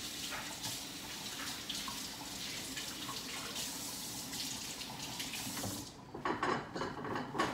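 Kitchen faucet running into a sink as hands are washed, a steady splashing that stops about six seconds in, followed by a few short handling sounds.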